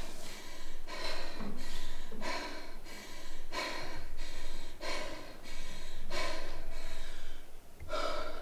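A woman breathing hard, catching her breath after an all-out effort on an exercise bike. About seven deep, heavy breaths come roughly one every second and a quarter.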